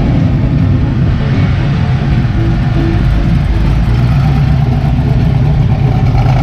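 A vehicle engine running steadily, a low rumble with no clear rise or fall.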